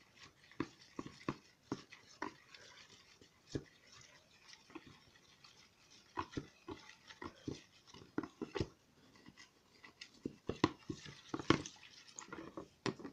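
Metal spoon stirring white glue and water in a plastic bowl: irregular clicks and scrapes against the bowl, busiest in the second half.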